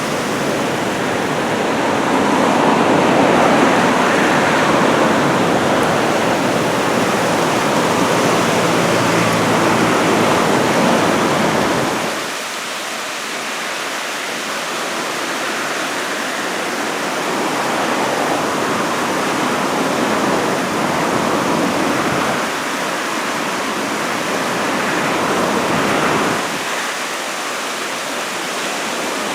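Heavy surf from typhoon swell: a continuous rush of waves breaking and washing. It is loudest for the first twelve seconds, drops off, then builds again twice with the next breakers.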